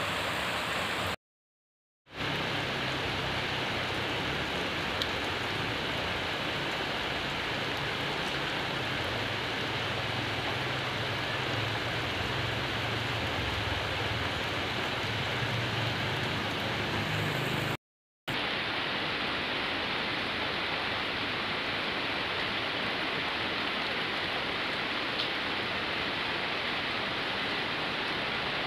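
Steady rain falling, an even hiss, cut off twice for a moment: about a second in and again a little after halfway.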